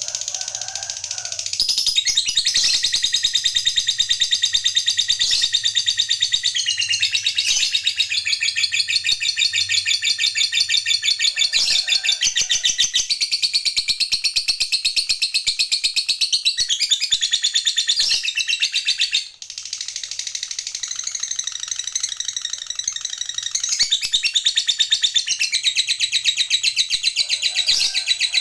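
A lovebird ngekek: a long, unbroken, very fast high-pitched chattering trill, the long-running chatter that lovebird keepers prize. It breaks off briefly about two-thirds of the way through, then starts again.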